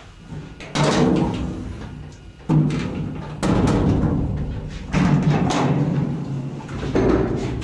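Old elevator clanking: heavy metal bangs, about five of them at uneven intervals, each ringing on with a booming resonance for a second or so.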